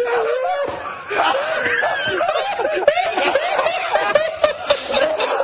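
Several men laughing hard together, their laughter overlapping and running on without a break, with high-pitched squeals and cackles.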